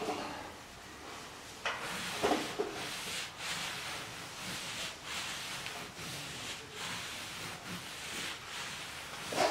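Damp cloth rubbing in repeated, irregular swishing strokes over a drywall ceiling, wiping the edges of dried joint compound smooth.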